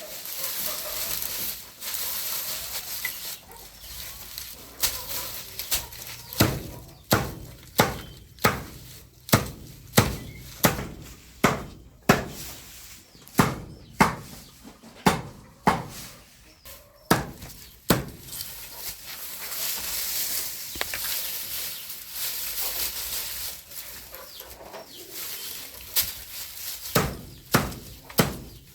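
A hammer driving nails into wood: a long run of sharp, regular blows, about one to two a second, in the middle, and a few more near the end.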